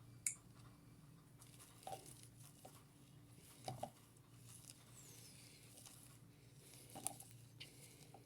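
Near silence: a faint steady low hum with a few soft clicks and small rustles.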